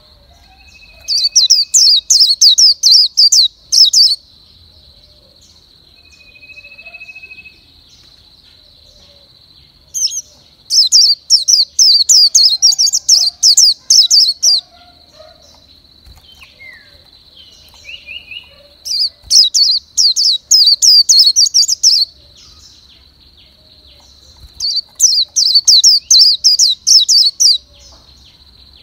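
A bird singing: four loud bouts of rapid, high repeated chirps, each lasting about three seconds, spaced several seconds apart. A steady high-pitched tone runs beneath them throughout.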